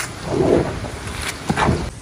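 Banana slices deep-frying in a wok of bubbling oil: a steady sizzle, with two louder swells as a metal strainer stirs through the frying slices, about half a second and a second and a half in.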